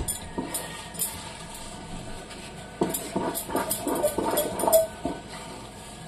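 Wooden spatula scraping and knocking against a non-stick pan while stirring a thick semolina halwa mixture with sugar. The scrapes and taps are irregular and come more thickly in the second half, with a brief clink near the end.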